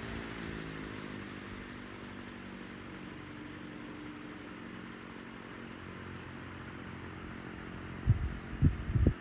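1967 Hunter CG16 16-inch oscillating table fan's motor slowing from a higher speed setting: the rush of air fades and the motor's hum drops slightly in pitch, then settles to a steady hum. A few low thumps come near the end.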